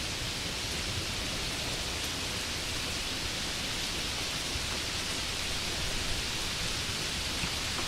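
Steady rain hiss, with a low rumble underneath.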